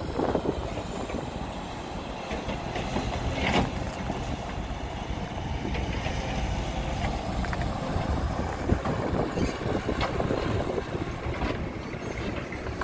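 Loaded diesel dump truck driving slowly over rough ground: a steady engine rumble, with the steel dump body rattling and giving occasional clanks.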